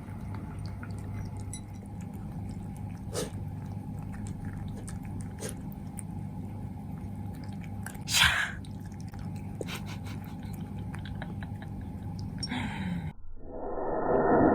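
Cats eating, with scattered small clicks and crunches of chewing over a steady low hum, and one short louder burst of noise about eight seconds in. Background music comes in near the end.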